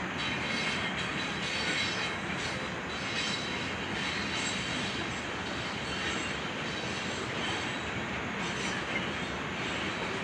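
Freight train cars rolling past on the rails: a steady, continuous rolling noise with a faint high squeal from the wheels.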